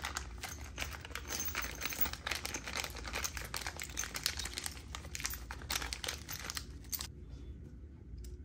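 Thin clear plastic parts bag crinkling as it is handled and opened to take out small metal gears; the crackling stops abruptly about seven seconds in, leaving a few faint clicks.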